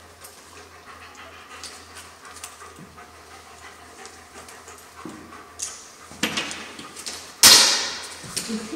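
German Shepherd dogs panting, faint at first and louder from about five seconds in, with a sudden loud noise about seven and a half seconds in.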